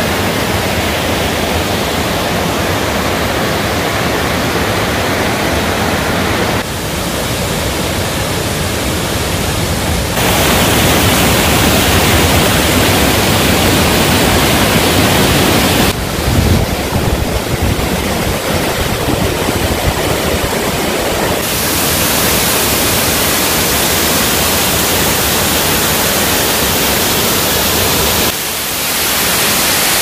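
Steady rush of water over rocks, first a rocky mountain stream tumbling through small cascades, then a tall waterfall pouring down a cliff. The noise changes level and brightness abruptly several times as the shots change.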